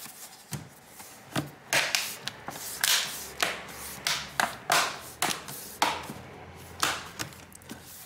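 Plastic bottom cover of an HP Pavilion Power 15 laptop being pressed down along its edge, its clips snapping into place in a string of irregular clicks and crunches.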